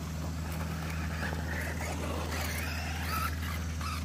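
Small RC stadium truck's sensored brushless motor and drivetrain whining, rising and falling in pitch as it speeds up and slows while driving on dirt, over a steady low hum.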